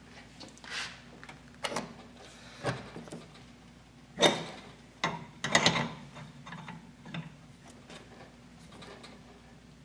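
Metal tools clanking and scraping on motorcycle engine parts: a string of irregular sharp knocks, loudest twice about halfway through, as a stuck part is worked at with a removal tool.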